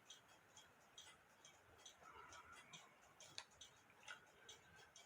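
Near silence with faint, light clicks, roughly two a second, from the small brass wheels and plates of a cuckoo clock movement being handled and fitted together.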